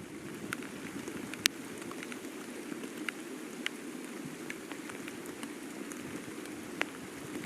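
Water dripping from rain-soaked trees: irregular sharp ticks of single drops hitting leaves, a few a second, over a steady low rushing noise.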